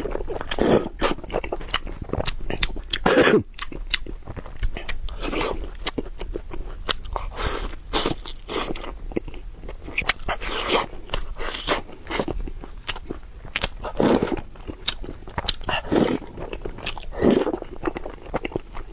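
Close-miked mukbang eating: crunchy bites and chewing, with many crisp crackles and a louder crunch every second or few.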